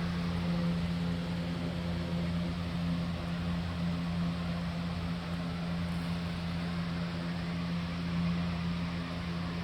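Hoover carpet cleaner running steadily: a constant motor drone over a hiss of rushing air.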